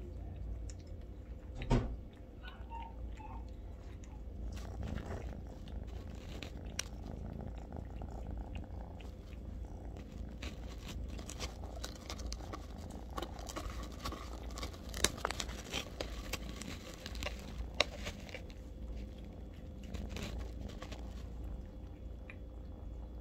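Kittens eating wet food from stainless steel bowls: chewing and lapping, with scattered clicks and a few sharp clinks of teeth or bowls, the loudest about two seconds in. A low, steady purring runs underneath.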